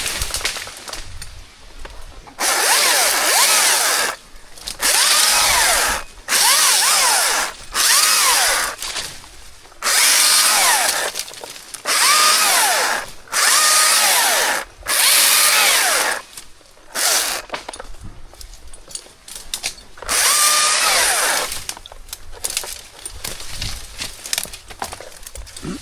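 Chainsaw cutting wood in short bursts: about eight trigger pulls of a second or so each, the motor pitch rising and falling within each, then a longer one near the end after quieter gaps.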